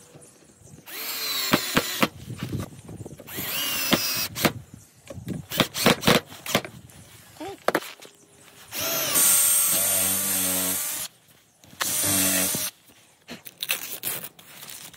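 Cordless drill-driver running in four short bursts, its motor whine changing pitch under load as it drives screws into a metal keyhole fitting on a wooden railing, with light knocks and clicks from handling between bursts.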